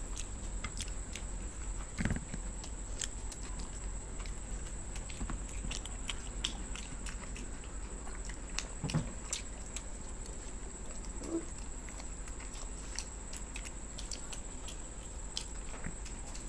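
Two people chewing and biting egg bread toast close to the microphone: soft, scattered mouth clicks and smacks, with two slightly louder low thuds. A faint steady high-pitched whine runs underneath.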